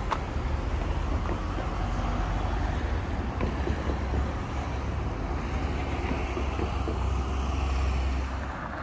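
Road traffic passing close by, with engine and tyre noise over a steady low rumble that is loudest late on and drops away near the end.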